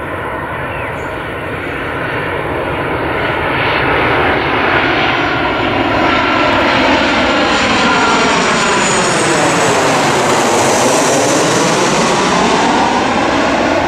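Boeing 737 jet airliner on final approach with gear down, its engines at low approach power. The sound grows louder over the first few seconds, then sweeps through with a phasing whoosh as the jet passes overhead about ten seconds in.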